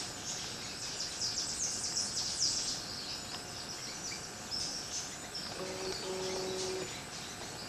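Tropical forest birds and insects: quick runs of short high chirps over a steady insect hiss. A little past the middle a low, even tone is held for about a second.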